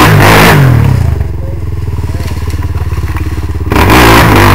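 Kawasaki KFX sport quad's engine revving hard, easing off about a second in to a lower, quieter run, then revving up loudly again near the end.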